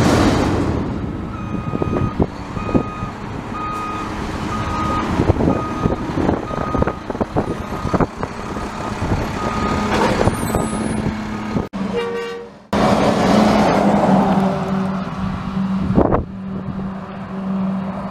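Front-loading garbage truck's diesel engine running, with its backup alarm beeping regularly about twice a second as it reverses. After a brief break about two-thirds in, the truck's engine runs louder as it drives away.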